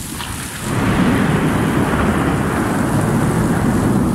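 Heavy rain falling steadily, then just under a second in a loud clap of thunder breaks in suddenly and rumbles on.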